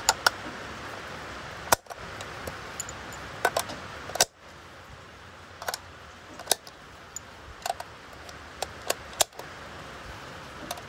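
Brass 7.62x51 cartridges being pressed one by one into an M1A's steel box magazine: sharp metallic clicks, irregular and about one a second, as rounds snap in and cases knock against the magazine.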